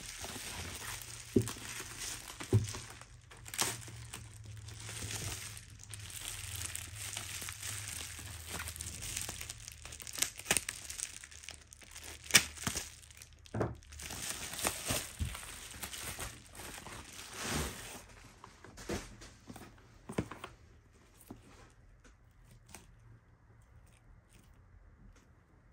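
Bubble wrap crinkling and rustling as it is handled and pulled off a boxed album, with a few sharp snaps. It goes much quieter after about eighteen seconds, leaving only occasional faint ticks.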